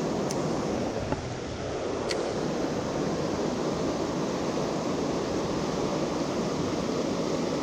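Fast river water rushing steadily.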